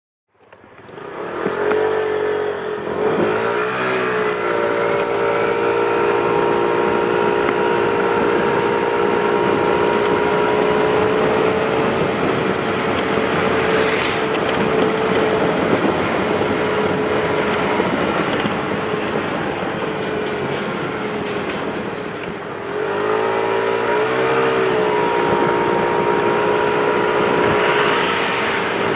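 Suzuki Let's 4 Basket scooter's 49 cc single-cylinder four-stroke engine running on a test ride after repair. The engine note rises as it pulls away about two seconds in and then holds steady. Near the end it eases off briefly and rises again.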